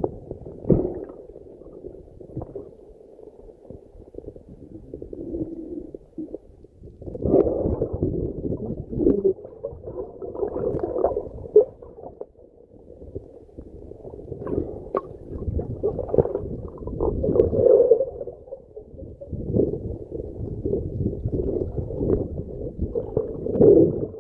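Muffled low rumbling and gurgling of water moving around an underwater camera housing, swelling and fading irregularly.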